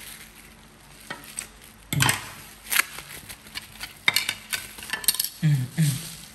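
Plastic bubble wrap crinkling and rustling as it is pulled off a figure's parts by hand, in irregular bursts.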